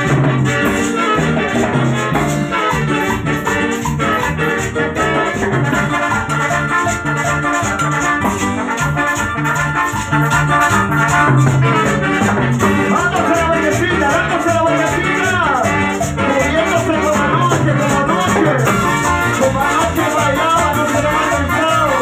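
Live Latin dance band playing: horns and saxophone over a steady beat, with a metal güira scraping a constant rhythm.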